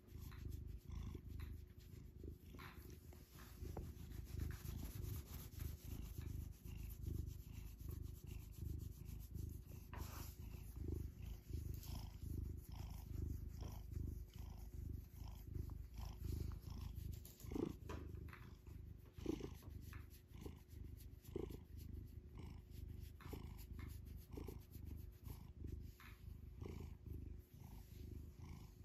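Domestic cat purring continuously, very close to the microphone.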